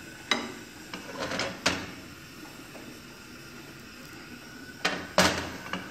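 A few sharp knocks and clinks of kitchen utensils: a plastic ladle set down against a glass mixing bowl of crêpe batter, then a frying pan knocking against the gas stove's metal grate as it is handled. The clearest are two close knocks near the end.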